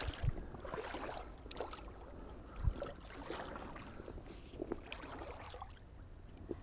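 Shallow creek water sloshing and splashing around a wader-clad angler's legs as he moves to land a hooked trout, with a couple of dull thumps, one just at the start and one about two and a half seconds in.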